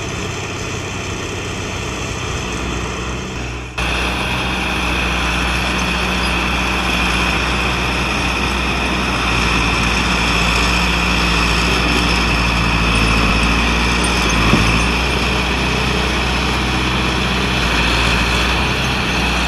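John Deere 440A log skidder's diesel engine running steadily as the machine drives its front blade up against a pile of logs. The sound jumps louder suddenly about four seconds in, and there is a single short knock near the fifteen-second mark.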